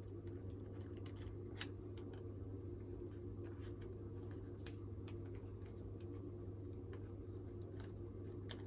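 Faint scattered clicks and taps of small parts being handled on a workbench, with one sharper click about a second and a half in, over a steady low electrical hum.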